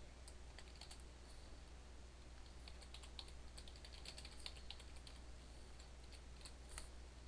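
Faint typing on a computer keyboard: a run of light key clicks over a steady low hum.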